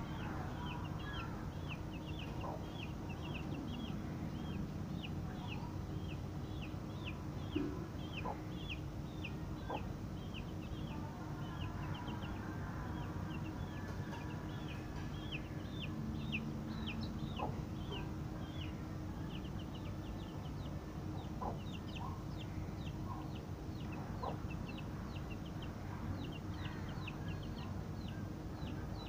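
Young chicks, about 20 days old, peeping over and over, about two high-pitched peeps a second.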